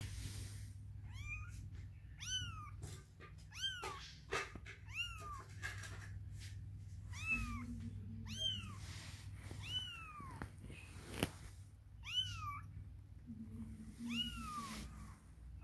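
Kitten meowing over and over: about nine short, high-pitched meows, each rising then falling, a second or two apart. A few sharp clicks fall between them, the loudest about eleven seconds in.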